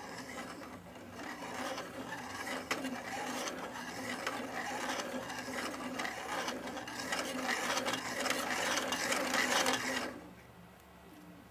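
3D-printed plastic Scotch yoke mechanism turned by hand: the plastic parts make a continuous clicking, scraping clatter as the wheel's pin drives the slotted slider and arms back and forth. It stops suddenly about ten seconds in.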